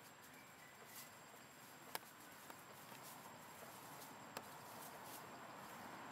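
Quiet forest ambience: a faint steady high hum under a few scattered sharp ticks and light rustles, the loudest tick about two seconds in.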